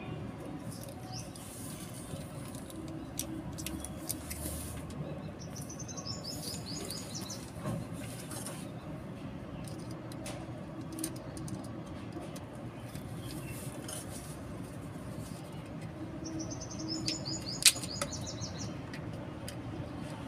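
Small clicks and rustles of fingers working the stripped copper wire ends of a plug cable, with one sharper click near the end. A bird gives a short rapid trill twice, about six and seventeen seconds in.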